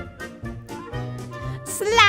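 Bouncy children's cartoon background music with a light bass line.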